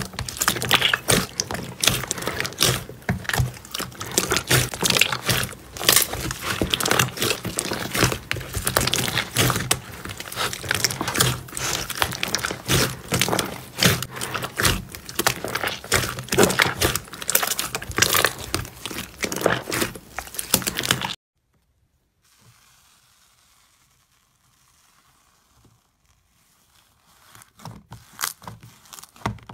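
Hands squishing and pressing glossy slime in a tub, a dense run of wet crackling and popping. It cuts off suddenly about two-thirds of the way through, and softer squishing crackles come back near the end.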